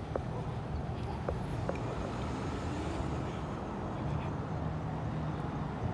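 Steady low rumble of city street traffic, with a few faint ticks.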